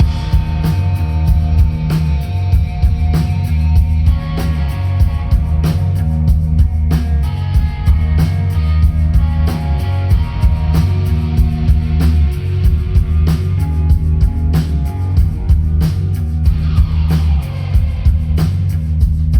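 Live rock band playing the instrumental opening of a song: drum kit keeping a steady beat over heavy bass, with guitar above. It starts abruptly and is loud.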